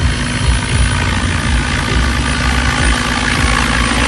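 Electric 12S RC scale helicopter, a Vario Lama built on T-Rex 700 mechanics, in flight: its rotor blades chop steadily, with the steady whine of its onboard simulated turbine sound over the top.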